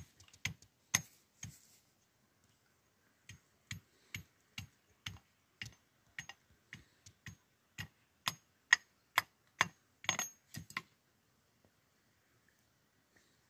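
A run of sharp knocks or taps, evenly spaced at about two a second, stopping about eleven seconds in.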